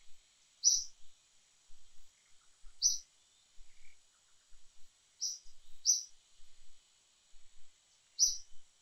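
A small bird giving five short, high chirps at uneven intervals, over a faint steady high-pitched hiss of insects.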